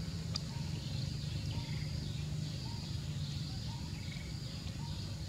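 Outdoor forest ambience: a steady low hum under a haze of insect and bird chirping, with a short call repeating about every two-thirds of a second. One sharp click about half a second in.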